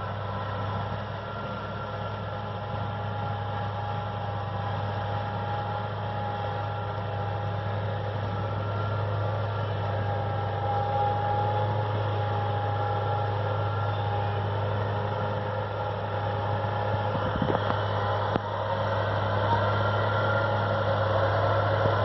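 Valtra N142 tractor's four-cylinder diesel engine running steadily under load while it drives a Claas disc mower through tall grass. A low engine hum carries a steady higher whine, and the sound grows gradually louder as the tractor approaches. There are a couple of brief knocks near the end.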